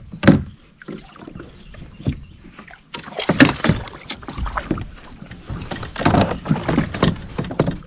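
Irregular knocks and water sloshing around plastic fishing kayaks as a paddle is handled and a hooked catfish is brought alongside. The louder bursts come just after the start, about three and a half seconds in, and again between six and seven seconds.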